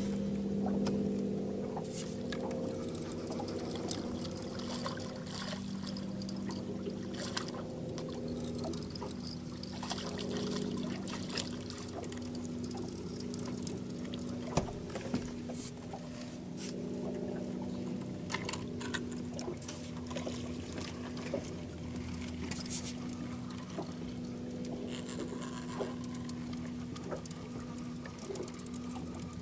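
Boat's outboard motor running at a steady low speed, with water splashing against the hull and occasional clicks and knocks.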